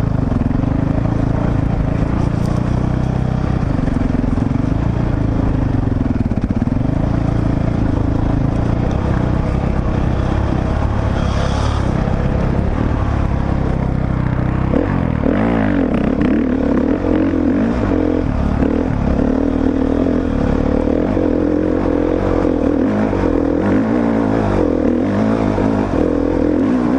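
Honda CRF four-stroke dirt bike engine running under the rider, its pitch rising and falling with the throttle. About halfway through, the note becomes more wavering and uneven.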